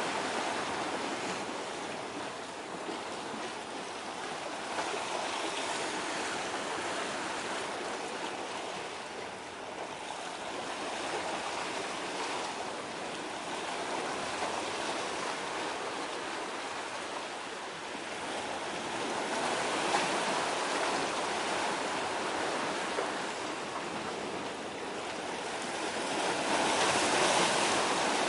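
Waves washing on the shore: a steady rushing noise that swells and eases every several seconds and is loudest near the end.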